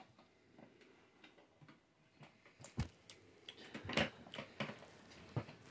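Scattered light clicks and knocks of PC hardware being handled, the loudest a little under three seconds and about four seconds in.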